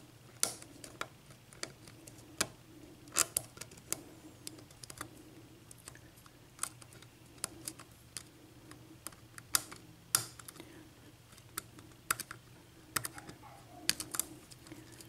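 Irregular light clicks and ticks of a lock pick working the pins inside a Russwin six-pin cylinder lock during single-pin picking, the pick a little thick for the keyway. The clicks come at uneven intervals, a few louder than the rest.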